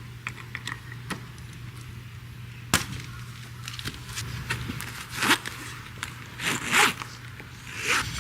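Light clicks and one sharp click about three seconds in, then several short rustling scrapes in the second half, over a steady low hum.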